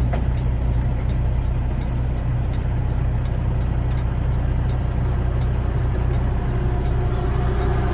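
Semi-truck's diesel engine running steadily while driving, a constant low drone with road noise.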